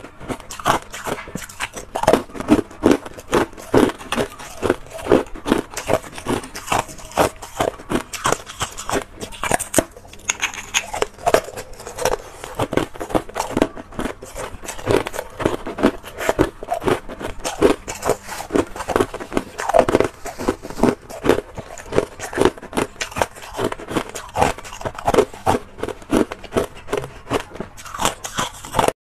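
Close-miked crunching and cracking of thin discs of hard ice being bitten and chewed, many sharp crunches a second.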